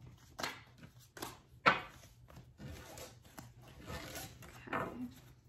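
Tarot cards being gathered up from a cloth-covered table: a run of short slides, flicks and taps of card against card, the sharpest about a second and a half in, with a longer rustle of cards being stacked toward the end.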